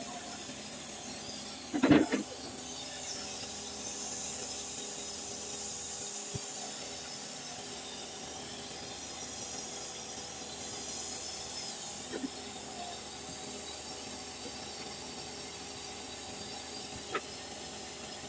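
Steady hiss, with one short knock about two seconds in and a couple of faint clicks later, as oily metal differential parts are handled by hand.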